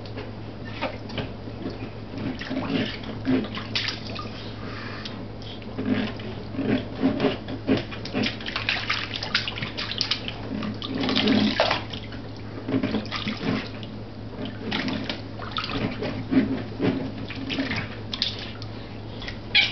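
Water splashing and sloshing in a small inflatable baby bathtub as a baby is washed by hand, in irregular splashes.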